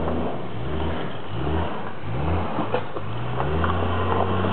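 Lifted four-wheel-drive truck's engine revving in short repeated swells as it crawls over rocks, then holding a steady note about three and a half seconds in.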